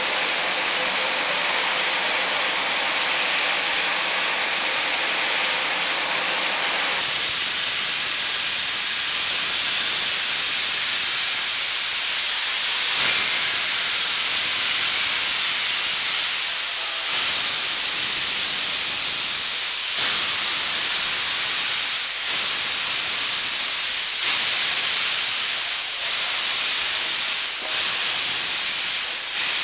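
Ex-South Australian Railways broad-gauge steam locomotive moving off with its cylinder drain cocks open: a loud, steady hiss of escaping steam. In the second half the hiss dips briefly every two seconds or so.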